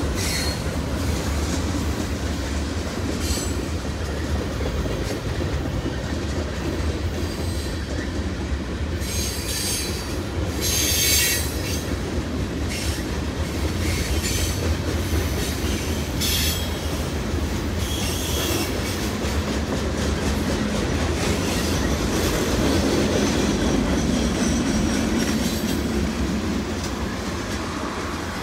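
Freight cars of a long mixed manifest train rolling past on the rails: a steady low rumble of wheels on track, with high-pitched wheel squeal flaring up several times, loudest about ten seconds in.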